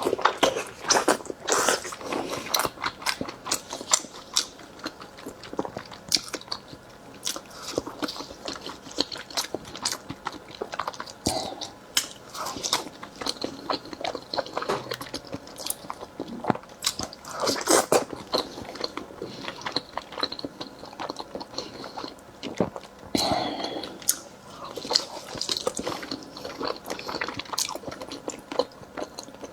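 A person eating raw salmon close to the microphone: biting and chewing with many quick, irregular mouth clicks and smacks.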